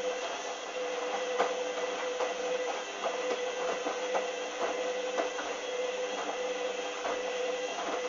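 Hoover Dynamic washing machine turning its drum in the first rinse: a steady motor whine with irregular splashes and soft knocks from a load of jeans tumbling in the water.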